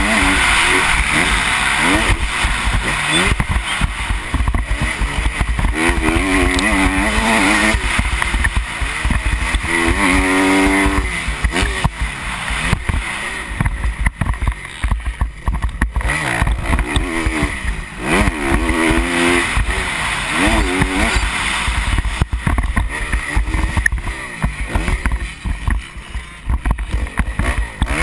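Motocross dirt bike engine revving up and down over and over as the rider works through the gears around the track, heard from on the bike with a steady low wind rumble on the microphone.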